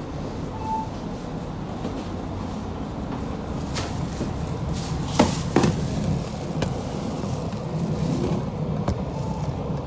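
Inside a moving city transit bus: steady engine and road rumble, with a few sharp rattling knocks from the bus body around the middle and a brief beep less than a second in.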